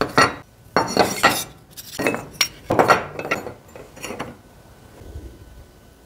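Aluminium solar-panel mounting brackets clinking against each other and clattering as they are set down on a wooden workbench: a run of sharp metallic knocks for about the first four seconds.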